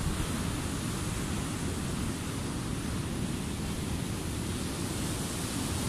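Steady rush of ocean surf breaking on a sandy beach, mixed with wind on the microphone.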